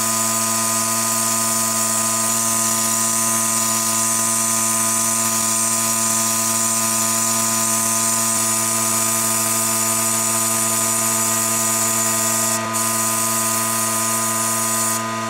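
Electric power tool running at a steady speed with an even motor hum and whine, and a high hiss of abrasive working against the wooden saw handle. The sound dips briefly a couple of seconds before the end.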